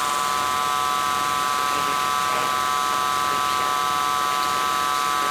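Steady electronic drone from the performance's live sound: a dense cluster of high steady tones with fainter lower tones beneath, holding an even level throughout.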